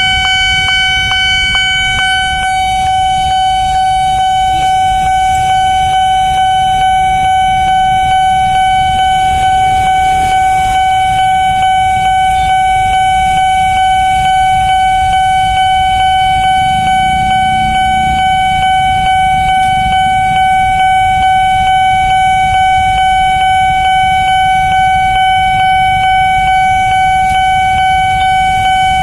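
Railway level-crossing warning alarm sounding one steady, unbroken high tone, loud, signalling that a train is approaching and the crossing is closed. Underneath it is the low rumble of motorcycles and cars idling in the traffic queue.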